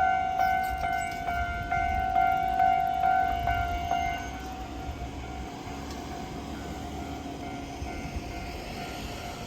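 Japanese railroad crossing warning bell ringing in even strokes, about two and a half a second, over a low rumble. About four seconds in the strikes stop and the level drops, leaving a fainter tone.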